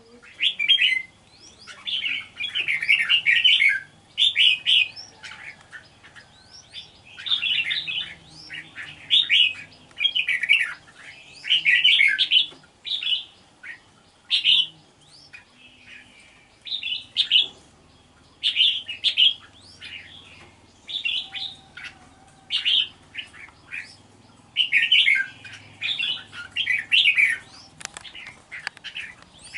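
Red-whiskered bulbul singing short, loud, warbling phrases again and again, one every second or two with brief pauses between.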